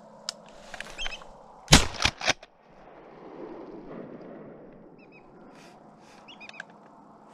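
Shotgun fired at ducks over a marsh: one very loud report about two seconds in, followed within half a second by two more sharp cracks. Faint, short duck calls come near the end.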